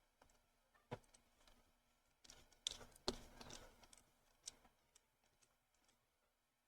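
A handful of faint, sharp clicks from a small screwdriver driving tiny screws to fix a scale-model exhaust manifold to its engine block, the loudest about three seconds in, with near silence between.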